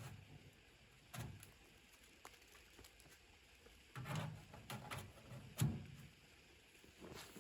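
Scattered knocks and crunchy rustles at irregular intervals, a cluster of them in the middle with one sharp knock the loudest.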